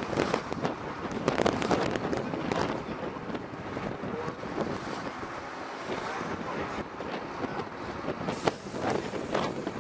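Wind buffeting the microphone in irregular gusts, over the steady rumble of a moving vehicle.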